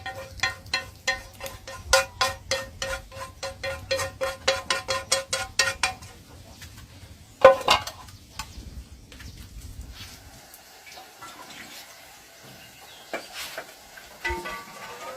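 Background music of quickly repeated pitched notes that stops about six seconds in. After it come quieter small sounds and clicks, with one short loud sound at about seven and a half seconds.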